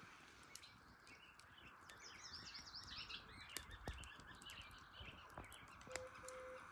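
Faint outdoor ambience: a wood fire crackling now and then in a metal fire pit, over a steady background chorus of frogs. A bird sings a warbling phrase a couple of seconds in, and two short low tones sound near the end.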